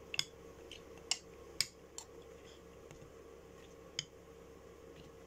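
A handful of light, sharp clicks and taps, about five spread over a few seconds, as a stemmed glass dessert bowl is gripped and shifted by hand.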